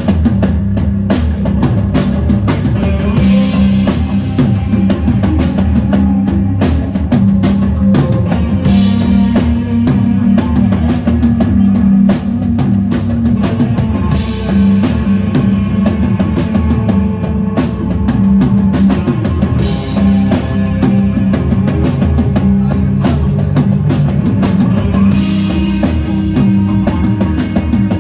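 Rock band playing live: drum kit and electric guitar over a steady, heavy low end.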